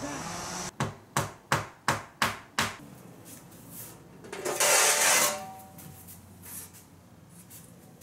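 Six sharp knocks in quick succession, about three a second, each dying away quickly. About two seconds later comes a loud rushing hiss lasting about a second.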